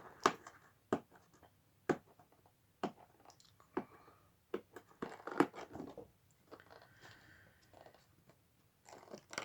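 Cardboard box and plastic packaging being opened by hand, with no scissors: irregular sharp snaps of card and plastic with short stretches of tearing and rustling.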